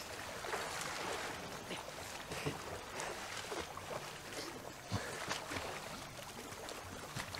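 Water splashing irregularly as two people swim in open water, with waves lapping.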